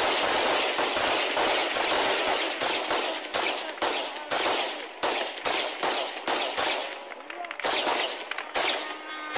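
Small-arms gunfire aimed at a kamikaze drone: rapid, run-together shots at first, then separate shots two or three a second, with a brief lull and a few last shots near the end.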